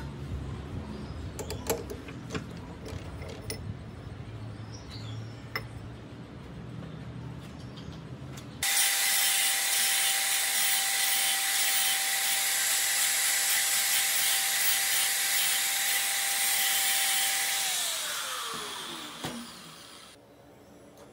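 Angle grinder with a thin cutting disc cutting into a steel rod clamped in a bench vise: a loud, steady high whine starts abruptly about nine seconds in, then falls in pitch as the grinder is switched off and spins down near the end. Before it, a quieter low hum with scattered clicks.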